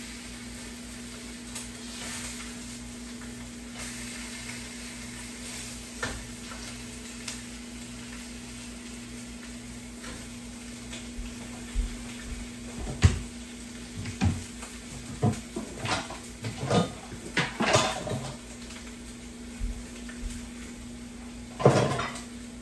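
Food sizzling in a frying pan on a gas stove over a steady low hum. In the second half comes a run of clattering knocks from dishes and cookware, and one more loud clank near the end.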